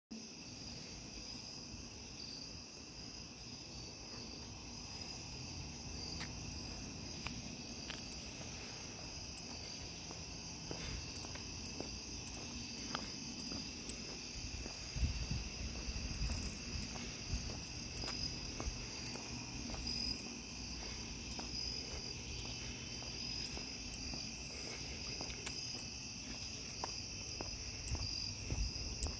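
A steady chorus of night insects such as crickets, trilling on two continuous high tones. Scattered sharp clicks come in from about a third of the way through.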